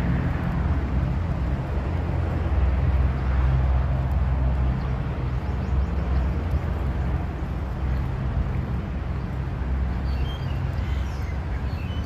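Steady low engine rumble with a rushing noise, as from a moving vehicle. A few short bird chirps come in near the end.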